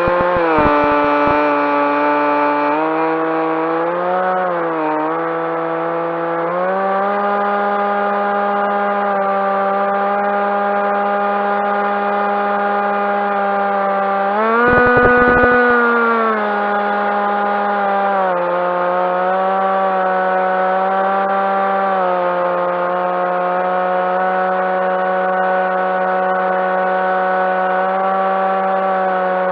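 Onboard sound of a Skywalker FPV plane's electric motor and propeller: a steady whine whose pitch shifts up and down with the throttle several times. It is highest about halfway through, with a brief rush of wind noise.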